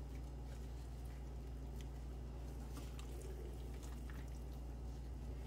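Gloved hands squishing and rubbing raw chicken skin as butter is worked underneath it, with a few faint wet ticks, over a steady low hum.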